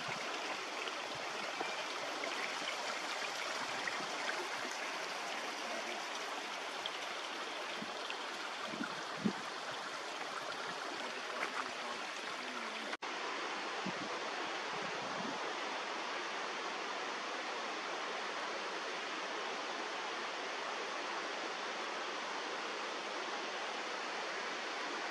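Steady rushing of a mountain creek flowing over rocks, with one soft thump about nine seconds in.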